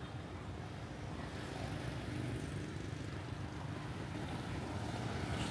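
City street traffic: a steady rumble of passing vehicles that gradually grows louder.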